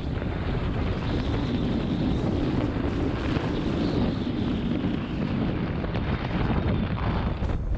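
Wind buffeting a small camera microphone: a loud, steady, gusting low rumble with hiss above it.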